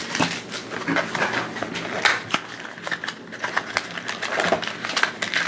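Small cardboard blind-box pack being torn open by hand: irregular rips, crackles and taps of card and packaging being handled.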